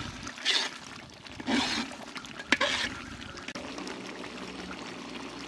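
Thick turkey curry gravy bubbling in a big metal pot, with a few wet glopping stirs of a metal ladle and a sharp clink of the ladle against the pot about two and a half seconds in. After that, a steady fine bubbling.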